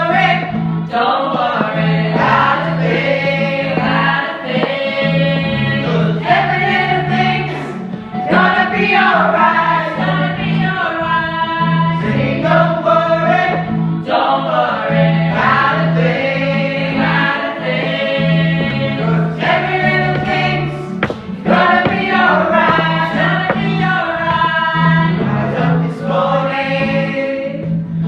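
A choir singing a gospel-style song, with a steady low bass note underneath that moves between pitches.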